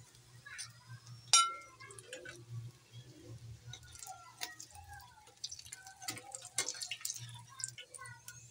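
Ring samosas deep-frying in hot oil, bubbling and popping in scattered small pops, with metal tongs clicking against the pan as they are lifted out; one sharp click about a second and a half in is the loudest sound.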